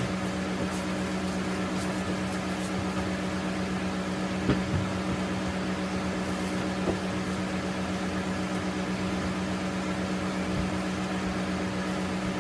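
A steady mechanical hum: a constant low tone over an even hiss, with one faint tap about four and a half seconds in.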